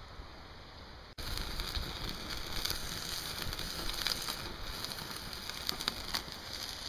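Faint rain pattering on a wet stone patio for about a second, then, after an abrupt cut, a wood fire burning in a small perforated steel stove with scattered sharp crackles.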